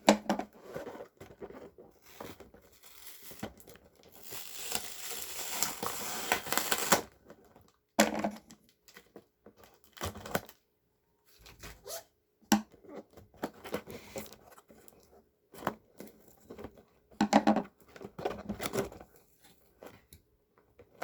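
Package being torn open by hand: one long rip lasting about three seconds, followed by scattered knocks and rustling as the packaging and its contents are handled.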